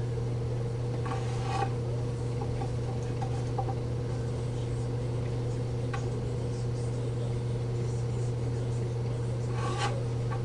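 A few faint taps and scrapes as a 2x6 pine board is handled on a workbench, over a steady low hum.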